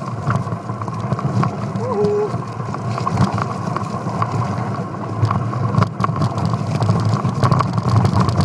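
Mountain bike bouncing down a rough, slippery jungle trail: continuous rattle and knocking of the bike and its handlebar-mounted camera, with jolts throughout and a brief squeak about two seconds in.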